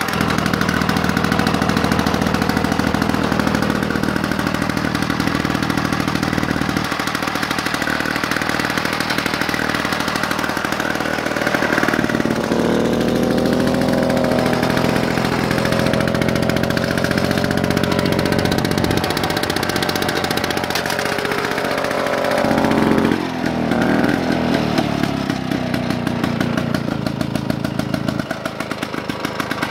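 Classic Victa rotary lawn mower's two-stroke engine running after a restart, speeding up about twelve seconds in and slowing again after a brief dip about 23 seconds in.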